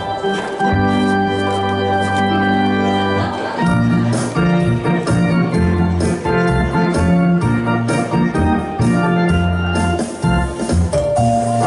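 Electronic arranger keyboard playing a dance tune in an organ voice, held chords and melody over a bass line and a steady accompanying beat.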